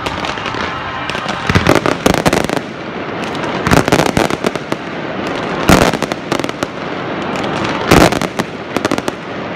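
Fireworks display: volleys of comets and low shells firing and bursting in quick clusters of sharp bangs, over a continuous hiss and crackle between volleys. The loudest reports come about halfway through and again near 8 s.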